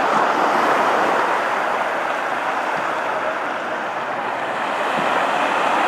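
Small Atlantic waves breaking and washing up a sandy beach: a steady surf wash that swells and eases gently.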